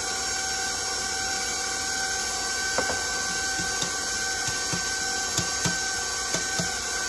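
Stand mixer motor running steadily at medium speed as its beater works cake batter, with a constant whine. From about three seconds in come several light taps and knocks from a metal cake pan being floured.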